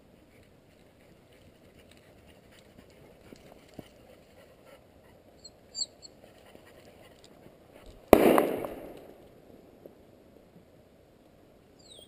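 A single shotgun shot about two-thirds of the way through, sharp and loud, dying away over about a second. A faint bird chirp comes a couple of seconds before it.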